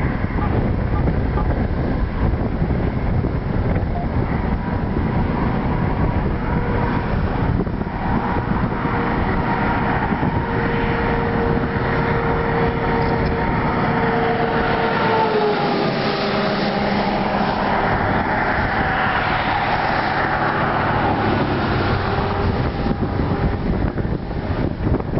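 Wind buffeting the microphone in a steady rumble. A faint steady tone comes in about a quarter of the way through and slides lower about halfway through.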